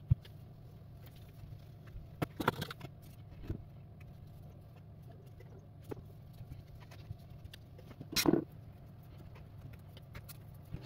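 Cloth rubbing and small handling noises as a phone display panel is wiped clean on a silicone mat: a sharp click at the start and short rustles about two and a half and eight seconds in, over a steady low hum.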